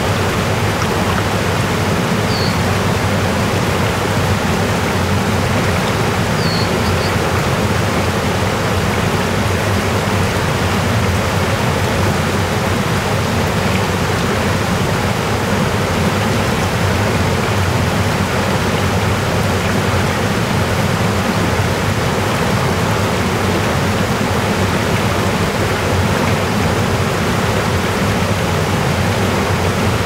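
Fast stream rushing and churning over rocks in a steady, loud whitewater roar. A faint short high chirp comes through twice within the first seven seconds.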